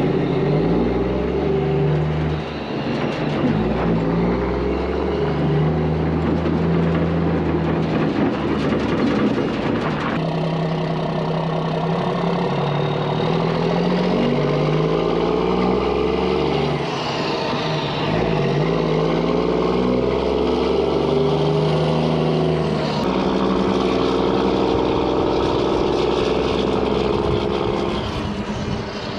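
Mack truck's diesel engine pulling a lowboy trailer uphill. The revs climb and fall back several times.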